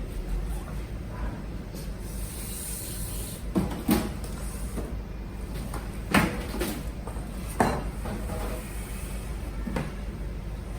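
A trolley-mounted MIG welding machine being moved by hand, with a low rolling rumble and several sharp clunks and knocks, the loudest about 4, 6 and 7.5 seconds in.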